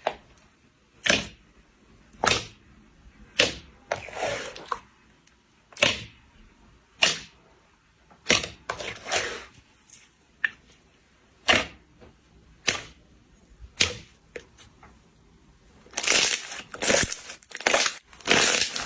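Slime being pressed and squeezed, giving sharp crackling pops about once a second, then a quicker run of crackles near the end.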